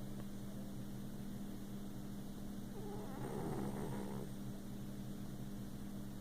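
A kitten snoring in its sleep: one rough breath about three seconds in, lasting about a second, over a steady low hum.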